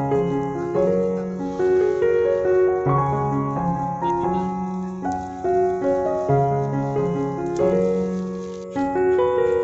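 Background music: a gentle piano tune with a repeating pattern of notes.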